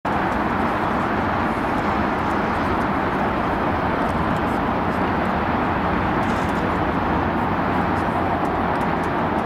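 Airbus H135 twin-turbine helicopter running on the ground during start-up: a loud, steady rushing engine noise that does not change.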